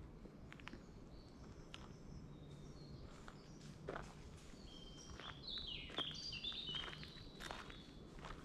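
Footsteps on a woodland path with small birds singing: scattered high chirps at first, then a busy run of twittering notes about five seconds in.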